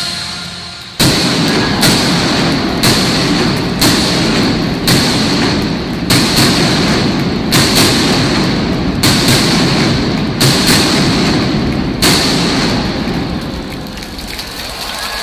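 Aerial fireworks bursting overhead: a sudden start about a second in, then a dozen or so sharp bangs about once a second over a continuous rumble, tailing off near the end.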